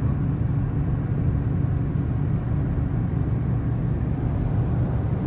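Steady low road and engine rumble of a moving car, heard from inside the cabin at highway speed.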